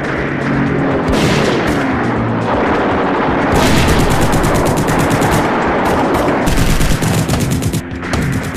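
Battle sound effects of rapid machine-gun fire, heaviest from about three and a half seconds in, over background music.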